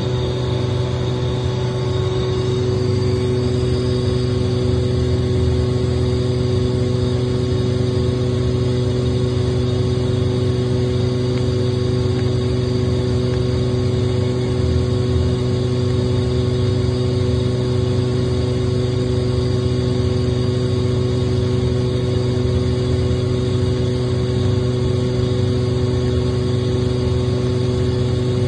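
Kaeser DSD 201 oil-injected rotary screw air compressor running steadily at working pressure and temperature: a loud, constant machine hum with a steady drone and no change in pitch.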